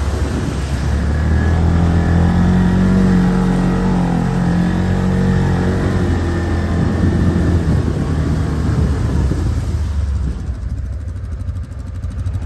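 Quad-bike (ATV) engine pulling under load, its revs climbing over the first couple of seconds and holding high. About ten seconds in it drops back to a lower, quieter run.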